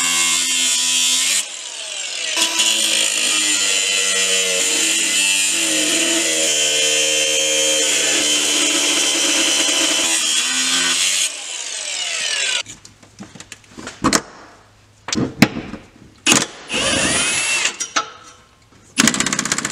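Angle grinder cutting through the old driveshaft center-support carrier, its motor pitch dipping and recovering under load; about 11 seconds in it is switched off and spins down. Then a power socket tool on 13 mm bolts runs in short bursts.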